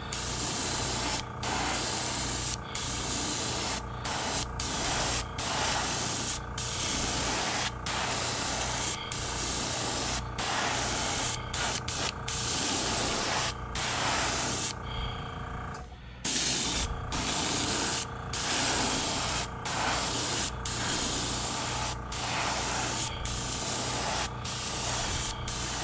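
Airbrush spraying pearl silver paint onto a carved wooden fishing lure in short passes: a steady hiss of air and paint, broken by brief pauses about once a second as the trigger is let off, with a longer pause about fifteen seconds in. A steady low hum runs underneath.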